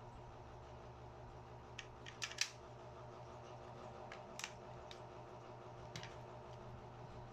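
Faint scattered clicks and taps of handling, with a quick cluster of several about two seconds in and single clicks later, over a steady low hum.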